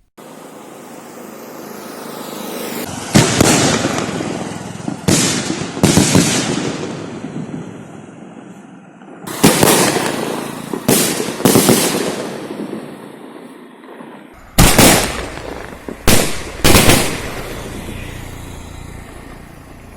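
Sony Vinayaga 'Red Cross' 3½-inch green-cracker sky shot firing: a rising hiss for the first three seconds, then about nine sharp bangs in clusters of two or three, each trailing off over a second or so.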